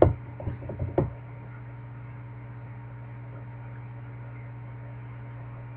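Steady low electrical hum, with a few light knocks or clicks in the first second.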